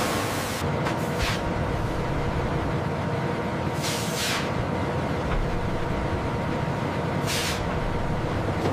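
Paper-mill press machinery running steadily, with short sharp hisses about a second in, around four seconds in and again near the end.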